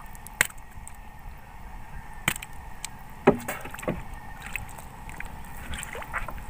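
A few sharp knocks and clacks of a metal fishing spear and gear against a small wooden outrigger boat, the loudest about three seconds in, over a low steady wash of water.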